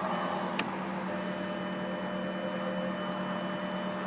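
Steady electrical hum with several faint held tones inside a parked car with its power on, and a single sharp click about half a second in.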